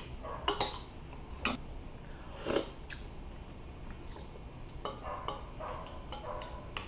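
Metal spoon stirring stew in a ceramic bowl, with a few light clinks and scrapes against the bowl spaced out over several seconds.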